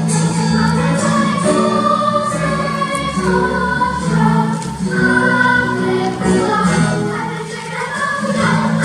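Children's choir singing with accompaniment: high voices holding and moving between notes over a steady low line.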